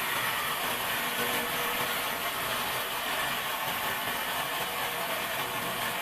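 Large band saw running and cutting lengthwise through an old pine plank, a steady, even sawing noise without a beat.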